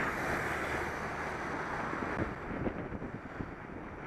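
Wind rushing over the microphone of a bicycle-mounted camera while riding along a road, loudest in the first couple of seconds and easing after, with a few light knocks and rattles from about two seconds in.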